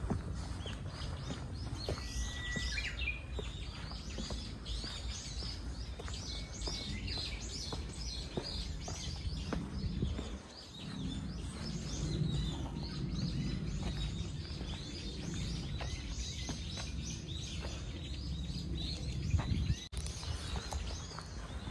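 Many small birds chirping in a dense chorus of quick, high calls, over a steady low outdoor rumble, with the light footsteps of someone walking a woodland trail and steps.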